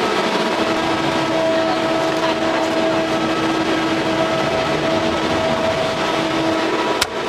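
A steady machine hum over a rushing noise, with a sharp knock near the end.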